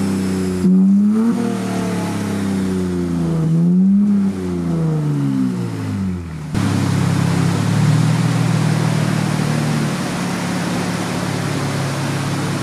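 The 2023 Nissan Z's twin-turbo V6 runs on a chassis dyno, with engine speed rising and falling twice. About six and a half seconds in, the sound changes suddenly to a harsher run at a steadier pitch.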